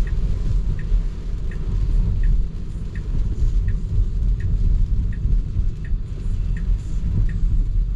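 Steady low road and tyre rumble inside a moving Tesla's cabin, with the turn signal ticking evenly, about one and a half ticks a second.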